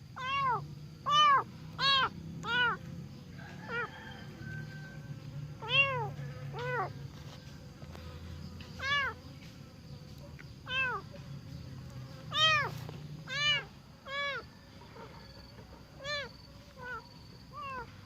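A young abandoned kitten meowing over and over, more than a dozen short high cries, each rising and then falling in pitch, about one a second. The cries are loudest near the start and grow shorter and fainter toward the end.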